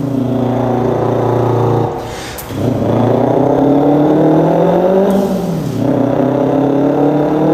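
A man imitating a revving car engine with his voice: a held buzzing tone, a quick breath about two seconds in, then a rising rev that drops back and climbs again like an upshift.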